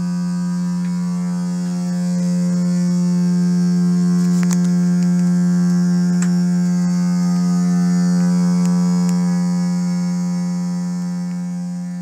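Household water pipes howling as water runs: one steady low hum with many overtones, a little louder about two seconds in. The noise comes with low water pressure throughout the house.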